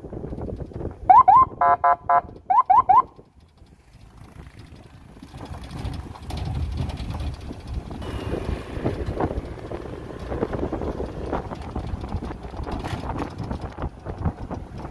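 A loud run of short rising electronic chirps, alarm-like, with a brief steady tone in the middle, lasting about two seconds near the start. After a short lull comes the low, steady rumble of a heavy truck's diesel engine running under load on a steep climb.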